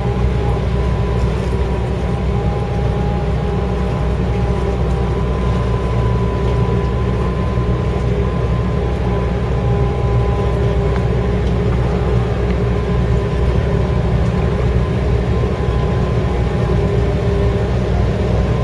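Diesel engine of a purse-seine fishing vessel running steadily as the ship moves slowly under way: a deep, even drone with a faint steady whine above it.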